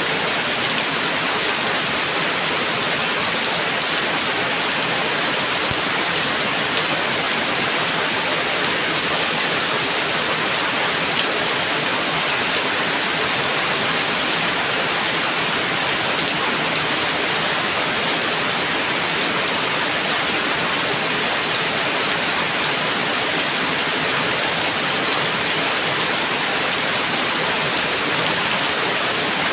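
Heavy rain falling steadily, an even hiss of rain on surfaces with no thunder.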